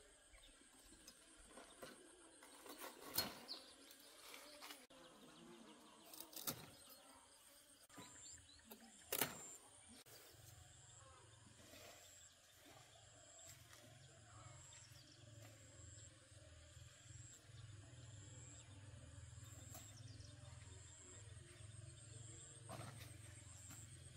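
Near-quiet outdoor ambience broken by three sharp clicks or snaps in the first ten seconds. A faint high-pitched pulsing tone starts about eight seconds in, and a low steady hum joins at about ten seconds.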